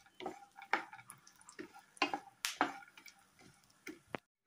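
Wooden spatula scraping and tapping against a non-stick pan, stirring chopped cashews and almonds frying in ghee, in irregular strokes about twice a second. The sound cuts off abruptly near the end.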